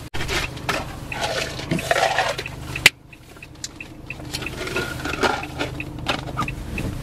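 Renault Master van's diesel engine idling, heard inside the cab, with a light ticking repeating about twice a second. A rush of noise fills the first couple of seconds, and a sharp click comes just under three seconds in.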